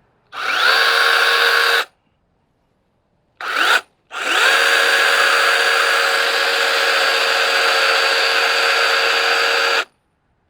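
Cordless electric mini chainsaw running in three bursts: a run of about a second and a half, a brief blip, then a steady run of about six seconds. Each burst starts with a quick rising whine as the motor spins up, then holds steady. This is a test run after the chain was sharpened and adjusted, and the chain is being oiled.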